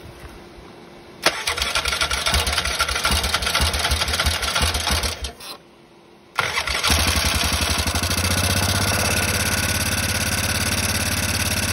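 1998 Yamaha Grizzly 600's single-cylinder four-stroke engine on the electric starter: a first bout of about four seconds dies, then about six seconds in it starts again and settles into a steady idle. The spark is back now that the pulse coil, found upside down, has been refitted the right way.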